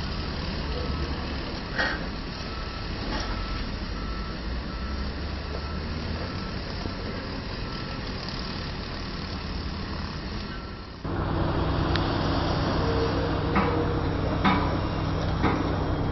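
Heavy diesel machinery running steadily, with a reversing alarm beeping about twice a second. About 11 s in, the sound cuts to a louder, steadier diesel hum broken by a few sharp knocks.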